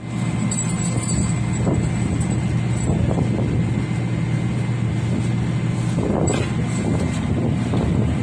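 Turboprop aircraft engine and propeller running with a steady drone.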